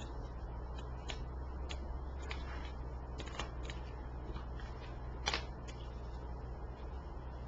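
Tarot cards being handled and laid down on a cloth-covered table: scattered soft flicks and slaps of card stock, the sharpest about five seconds in, over a steady low hum.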